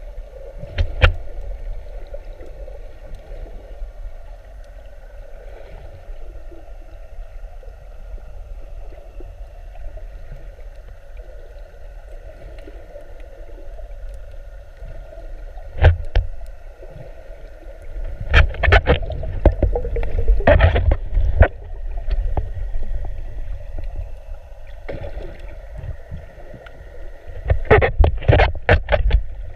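Muffled water sloshing over a steady low hum, broken by sharp knocks: one about a second in, one at about sixteen seconds, and clusters of knocks with louder sloshing in the second half and near the end.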